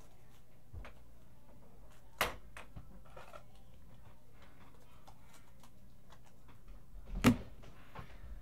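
Quiet handling of trading cards and their packaging on a tabletop: faint scattered clicks and rustles, a sharp tap about two seconds in and a louder single knock a little after seven seconds.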